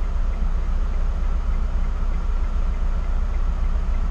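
Motor coach's diesel engine idling with a steady low rumble, heard from inside the coach's cabin.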